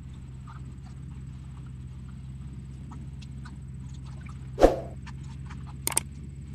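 Steady low drone of a large horizontal wood grinder and excavator engines, with scattered light cracks and crackles of wood and debris. One heavy thump about four and a half seconds in as the grapple rake drops a load of trees onto the grinder's infeed.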